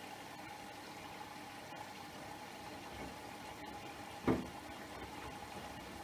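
Siemens iQ700 front-loading washing machine in its first rinse: water sloshing in the turning drum over a steady machine hum, with one louder swish-thump about four seconds in as the wet laundry drops.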